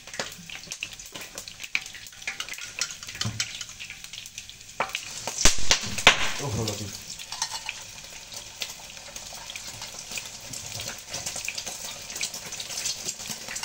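Chopped shallots sizzling in hot oil in a pan while being stir-fried, with a spatula scraping and clicking against the pan. A louder clatter comes about five and a half seconds in.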